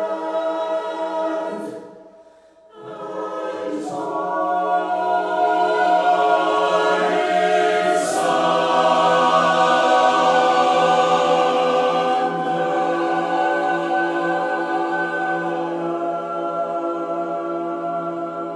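Mixed SATB choir singing a cappella in sustained chords. The sound breaks off for a brief breath about two seconds in, swells to full volume in the middle, then gradually softens toward the end.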